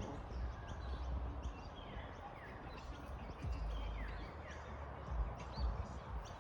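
Birds chirping, many short downward-sliding chirps scattered throughout, over a steady outdoor background with low rumbling.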